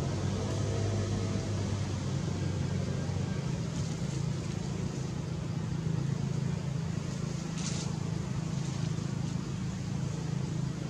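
A steady low engine hum, like a vehicle running nearby, with a short hiss about three-quarters of the way through.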